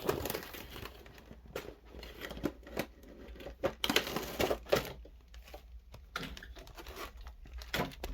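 Action-figure packaging being opened by hand: cardboard box flaps and a plastic clamshell tray rustling and crinkling, with irregular clicks and taps.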